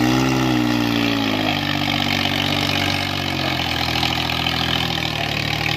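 Swaraj 855 tractor's diesel engine labouring under heavy load as it drags a loaded sand trolley up a sandy bank. The engine note rises briefly, then sags as it lugs, holds steady, and drops a little further about three and a half seconds in.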